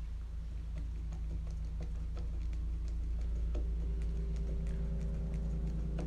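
Small, irregular clicks and ticks of a screwdriver turning a small screw into the plastic Tamiya TT-02 chassis at the motor mount, over a steady low hum.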